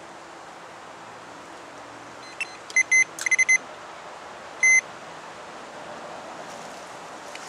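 Electronic carp bite alarm beeping as the line moves while the rod is being adjusted: a quick run of short beeps about two and a half seconds in, then one longer beep a second later.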